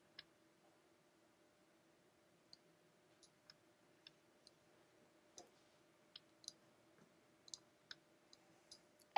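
Near silence broken by a dozen or so faint, irregularly spaced clicks of a computer mouse.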